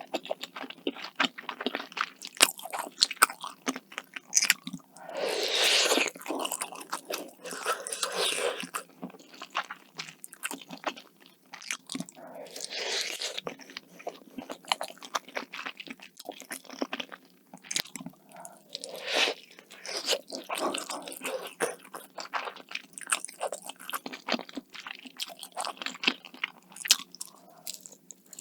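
Close-miked eating: crunchy bites and chewing with many sharp wet mouth clicks, broken by a few longer, noisier stretches.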